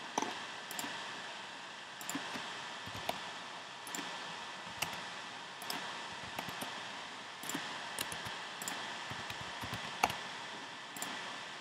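Scattered clicks of a computer mouse and keyboard keys over a steady hiss, the sharpest click about ten seconds in.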